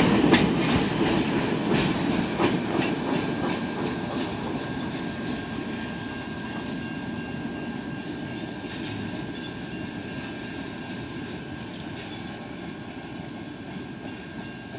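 The last cars of a freight train rolling past, with wheels clicking over the rail joints in the first few seconds. The rumble then fades steadily as the train moves away.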